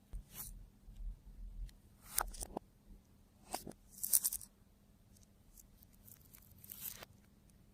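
Hands working slime, giving irregular sticky crackles and squelches, the loudest about four seconds in.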